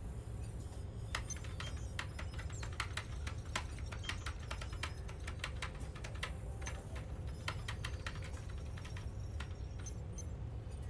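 Computer keyboard typing: quick, irregular key clicks starting about a second in and stopping near the end, over a steady low hum.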